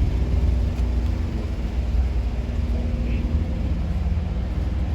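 Heavy diesel truck engine idling: a steady low rumble with a faint even hum over it.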